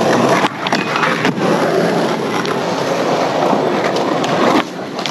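Skateboard wheels rolling on concrete, a steady loud rumble, with a few sharp clacks about half a second in, just over a second in, and near the end.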